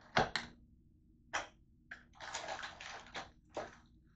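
Close-up eating sounds: crisp bites and crunchy chewing of green seedless grapes, an irregular run of sharp clicks and crackly crunches, with the two loudest snaps just after the start and a longer crunching stretch in the middle.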